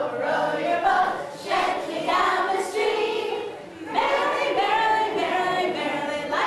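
A woman and a group of children singing a song together, with a short pause about two-thirds of the way through.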